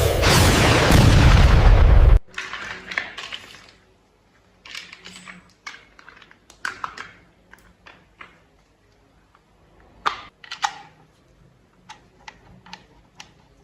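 A loud rushing noise for about the first two seconds that cuts off suddenly, followed by scattered light clicks and taps of plastic toy parts being handled and snapped together.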